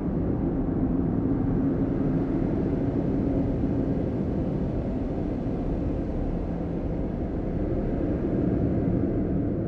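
Dark ambient drone: a steady, dense low rumble with a faint hum in the middle, beginning abruptly in place of the previous tonal sample.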